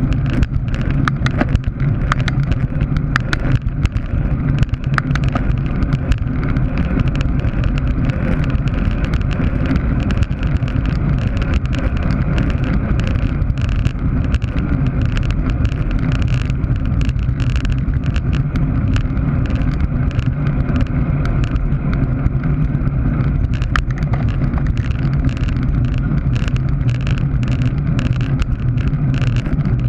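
Wind rushing over the microphone of a camera on a road bicycle ridden fast, a steady loud rush with a deep rumble of road and wind buffeting. Many small sharp clicks sit on top of the rush.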